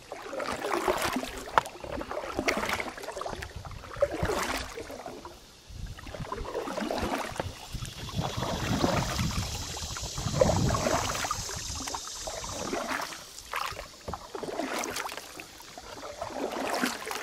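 Canoe paddles dipping and pulling through calm river water in uneven strokes every couple of seconds, with water dripping and swishing and a few sharp knocks.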